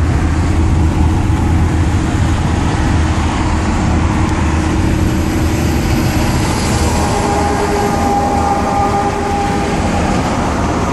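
Steady road and engine noise inside the cab of a Dodge Ram pickup on the move: a low hum under a hiss of tyres and wind. A faint whine comes in for a couple of seconds past the middle.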